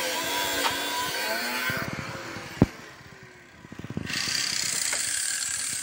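Angle grinder cutting exhaust metal, its whine wavering in pitch under load. It stops about two seconds in, and a steady, higher-toned running starts again about four seconds in.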